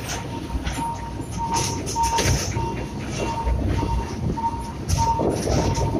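Narrow-gauge sugar-railway train running, with a low rumble and irregular clacks from the wheels and cars. Over it, a short electronic beep repeats steadily a little under twice a second.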